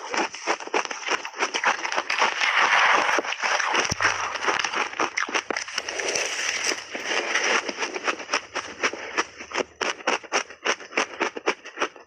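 Close-up crunching of crunchy buckwheat shaved ice being bitten and chewed: rapid crackling crunches throughout, thickening into two denser spells of crunching about two seconds in and again about six seconds in.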